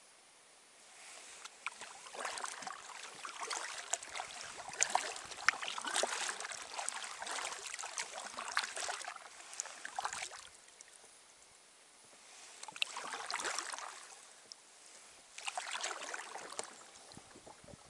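Kayak paddle working calm water: the blades splash and drip in irregular bursts, with short lulls between strokes.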